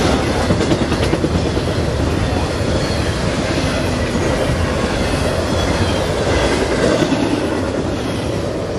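Double-stack intermodal freight cars rolling past on steel wheels: a steady rolling rumble and clatter, with a few wheel clicks in the first second or so. It eases slightly near the end as the last cars go by.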